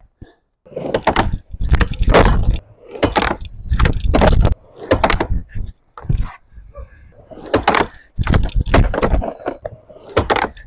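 Skateboard rolling on a plywood quarter pipe, with the board's wheels and deck slapping and clattering against the ramp on repeated blunt kickflip attempts. Several short spells of rolling and hits, each starting and stopping abruptly.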